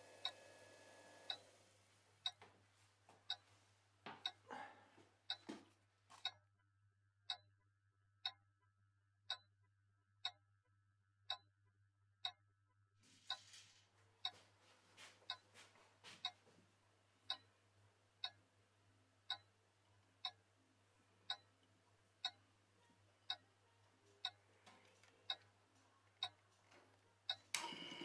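A clock ticking steadily, about once a second, over a faint low hum.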